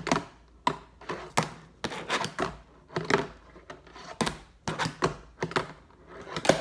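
Fingerboard clacking and tapping against a tabletop and a cardboard box edge as tricks are popped and landed: a long string of sharp, irregular clacks, several a second.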